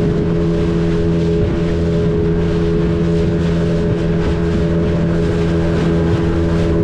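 Outboard motor of a small open boat running steadily under way, a constant drone, with wind and water noise over it.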